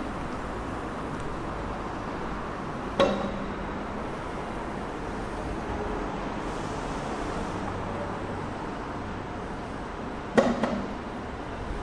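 Railway station background hum broken by two sharp metallic clanks that ring briefly, one about three seconds in and one near the end. The second is followed by a couple of lighter rattles.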